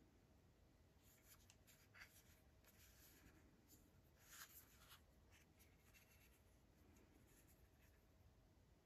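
Faint rubbing and small clicks of fingers handling a Redmi Buds 4 Lite plastic earbud charging case as its hinged lid is opened, with a sharper click about two seconds in and a brief scrape about four and a half seconds in.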